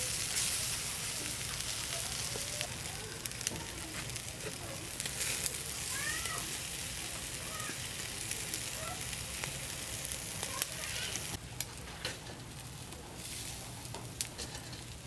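Pig ear and intestine sizzling on a wire grill over charcoal: a steady hiss with scattered sharp pops and clicks, easing a little about eleven seconds in.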